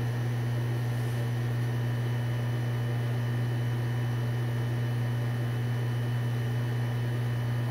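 Steady low hum over an even hiss, unchanging throughout: background room noise of a machine or electrical hum.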